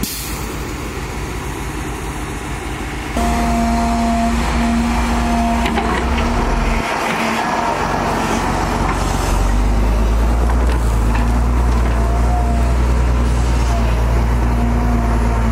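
Cat 320 hydraulic excavator's diesel engine running under load with a steady whine, as the machine swings, dumps soil from its bucket and digs. A quieter engine rumble comes first and steps up suddenly about three seconds in. A rush of falling soil sounds around the middle.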